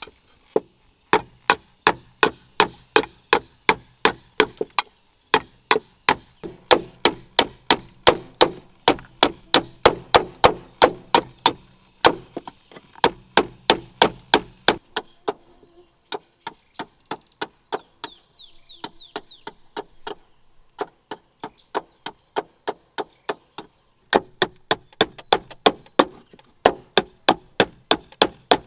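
A large knife chopping into a section of bamboo to shape it into a bowl, in quick, sharp knocks about three a second. The chopping eases to a few scattered strikes midway and picks up again near the end.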